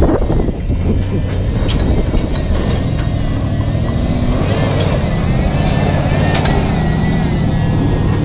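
Ford Expedition's 5.4-litre V8 running under load as the truck climbs a steep, loose rocky hill in four-wheel drive, with scattered clicks of tyres rolling over rocks.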